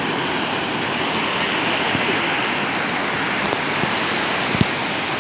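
Sea surf: waves breaking and washing in a steady rush of water noise, with a single short click about four and a half seconds in.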